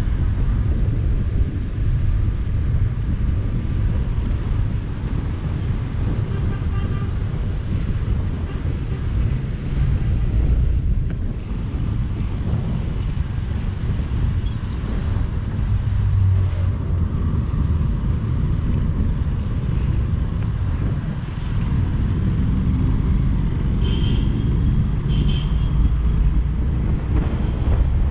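Riding a Honda motorcycle in traffic: steady wind buffeting on the microphone over the bike's engine and tyre rumble. Two short high beeps near the end.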